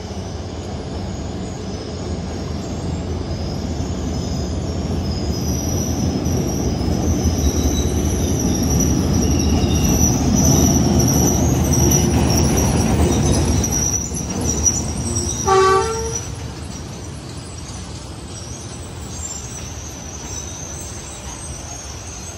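D19E diesel-electric locomotive and its passenger train rumbling past on the rails, swelling to a peak and then fading. A thin, high squeal sits over the rumble through the loudest part. About 15 seconds in the locomotive gives a short horn toot.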